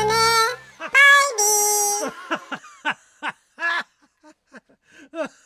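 A high-pitched voice draws out a few syllables, then breaks into a run of short giggles that fade away; the background music cuts off about half a second in.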